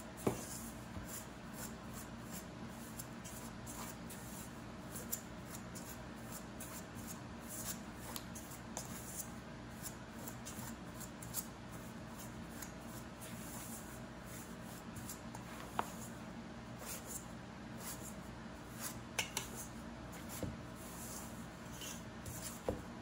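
Pastry blender's wire blades scraping through flour and lard and knocking against a stainless steel mixing bowl while the fat is cut in for pie crust: an uneven run of soft scratches with a few sharper clinks.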